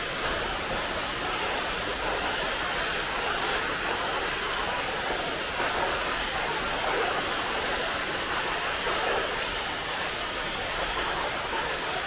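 Pinaisara Falls, a tall waterfall dropping down a cliff face, making a steady, even rush of falling water.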